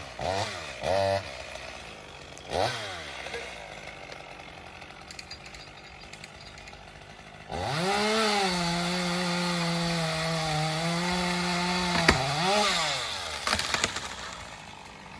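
Stihl two-stroke chainsaw blipped three times, then idling, then held at full throttle for about four and a half seconds from halfway in, its pitch settling a little lower as it cuts into the wood. Near the end it drops back to idle after one more short rev.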